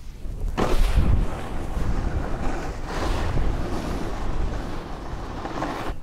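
A snowboard landing a jump about half a second in, then its edges scraping and carving across packed snow, with wind buffeting the microphone.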